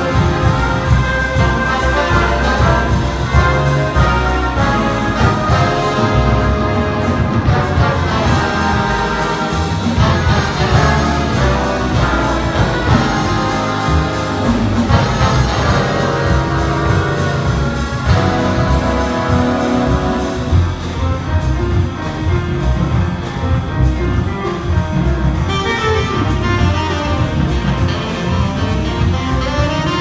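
Big band playing live in full ensemble: trumpets, trombones and saxophones over piano and double bass, at a steady loud level.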